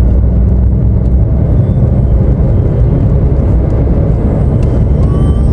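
Steady low rumble of a car heard from inside the cabin, with no talking over it. A faint, thin wavering tone comes in near the end.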